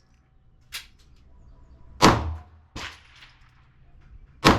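Taurus G3 9mm pistol firing two shots about two and a half seconds apart, each a sharp crack with a short boom after it, with fainter cracks in between.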